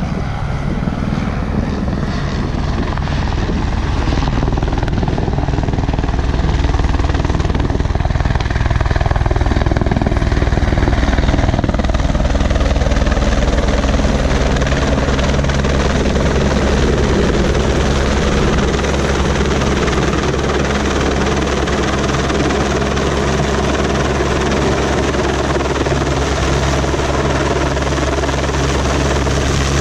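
Helicopter rotor and engine, growing a little louder over the first ten seconds as it comes in, then a steady, loud beat as it hovers overhead lowering a slung concrete skip.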